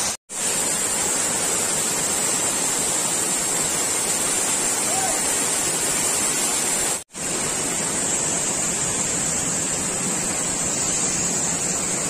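Waterfall rushing steadily, water crashing onto rocks. The sound cuts out briefly twice, about a quarter second in and about seven seconds in.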